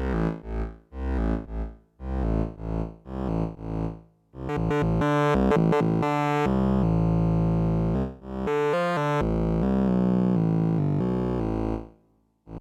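Fred's Lab Manatee synthesizer playing a preset from a keyboard: a run of short, separate notes with a deep bass for about four seconds, then long held notes and chords, with a short break about eight seconds in, fading out near the end.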